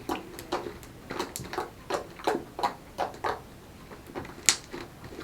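Fluffy shaving-cream slime being squeezed and poked by hand, giving a run of small clicks and pops, about three a second, with one sharper pop about four and a half seconds in.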